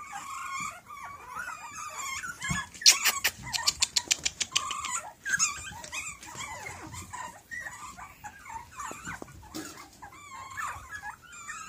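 Several young puppies yipping, whining and growling in high, squeaky voices as they tumble and play-fight, with a quick run of sharp clicks about three seconds in.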